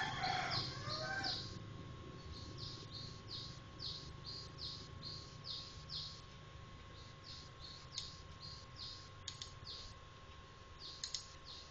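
Small-bird chirping: a steady run of short high chirps, about two to three a second, with a brief voice-like sound in the first second or so and a faint steady tone underneath.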